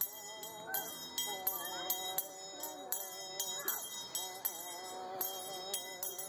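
Handbell rung in a steady beat of about three strokes a second, the rhythm of an Indian Shaker song, while a woman sings the song in long held phrases.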